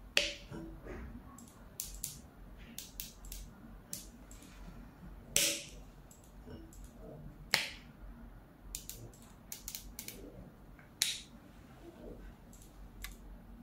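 Rifle scope turret being turned by hand: runs of small, sharp detent clicks, each click a 1/10 mil adjustment, with four louder sharp clicks spread through.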